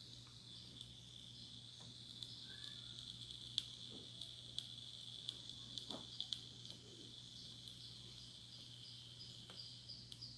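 Faint steady high-pitched insect chirring, with scattered small sharp clicks and a low steady hum underneath.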